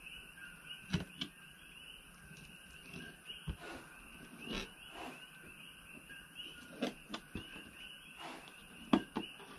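A chorus of coquí frogs calling, the short two-note chirps repeating without pause behind everything. Over it come a few sharp scrapes and taps of a fillet knife against the plastic table top as a barracuda fillet is cut, the loudest about a second in and again near the end.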